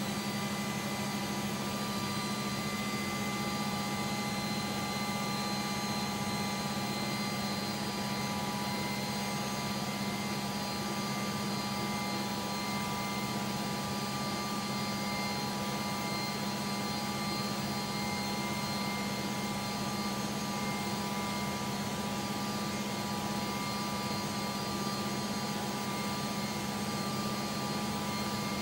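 UH-60A Black Hawk helicopter running on the ground, heard from under its turning main rotor: a loud, steady rush of rotor and turbine noise with a strong low hum and several steady high whines from the engines.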